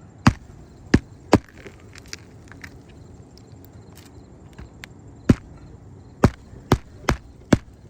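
Hammer driving roofing nails through an asphalt shingle: three sharp strikes in the first second and a half, a pause, then five more strikes.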